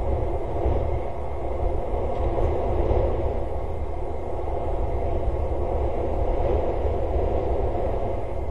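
Wind on an outdoor webcam microphone: a steady, slightly gusty rumbling noise.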